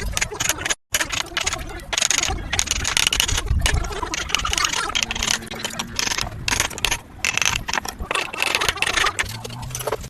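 Hand tools working wood: dense scratchy scraping with sharp taps, coming in uneven strokes about every second.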